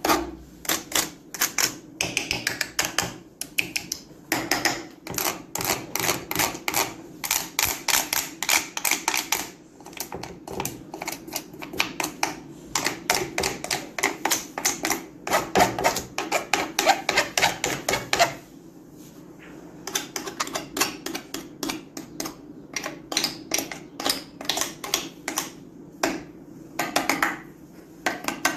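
A hand playing a sound collage of folded paper fans, glass gems and wooden craft sticks: fast runs of dense clicking and tapping, with a brief pause about two-thirds of the way through.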